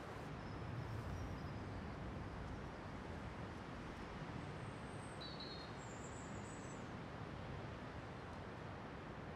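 Faint steady outdoor background noise with a few brief, high bird chirps. No engine note: the Tesla Model S 85D is electric and sits silent at idle.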